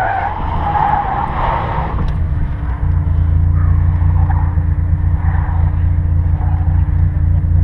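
Dodge Viper RT/10's V10 engine: a last tyre squeal fades out in the first couple of seconds as the car comes off its slide, then the engine settles into a steady low idle.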